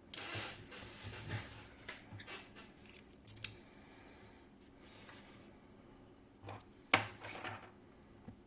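Small metal parts of a KABA Penta lock being handled during disassembly: a run of clicks, scrapes and light metallic clinks, then a couple of sharp clicks about seven seconds in.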